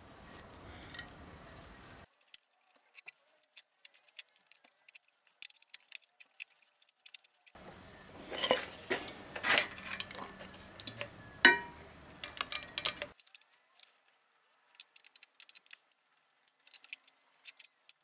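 Steel parts of a homemade lathe steady rest clinking and clicking as they are handled and worked by hand, in scattered light metallic ticks, busiest in the middle with one sharper knock.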